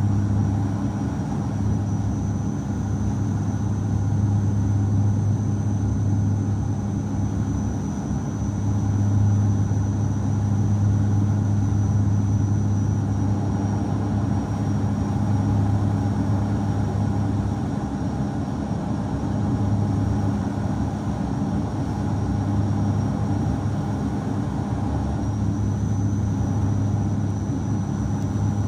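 Airliner cabin noise during the landing approach: the engines droning steadily, a low hum with a faint high whine above it.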